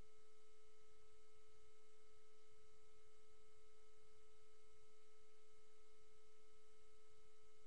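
A steady electronic tone with fainter overtones, unchanging throughout, over a faint low rumble.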